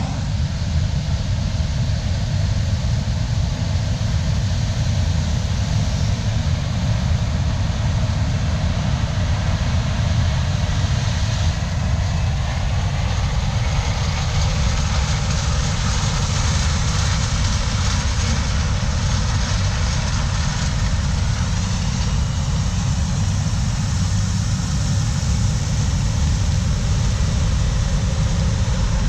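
Heavy diesel harvest machinery running steadily: a deep, even engine rumble that holds at one level throughout.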